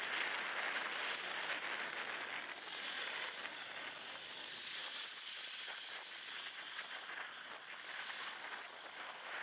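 Wind and small waves washing onto a shell beach, heard as a steady hiss. The low end is stripped out and the sound thinned by a high-pass filter and noise-removal processing.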